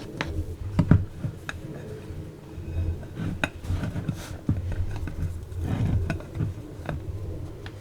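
Irregular clinks and knocks of dishes and utensils being handled, a dozen or so light sharp strikes spread unevenly.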